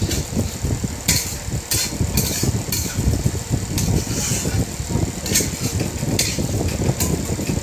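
Flat steel spatula scraping and stirring a thick masala paste frying in a steel kadai, in short irregular strokes, over a steady low hum. The masala is being fried until the oil separates.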